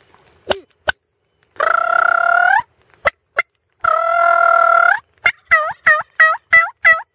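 Turkey calls: two long notes held at a steady pitch, each about a second, then a quick run of about six short dipping notes near the end, with a few sharp clicks between.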